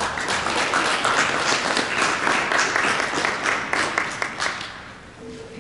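Audience applauding, the clapping thinning out into a few separate claps and stopping near the end.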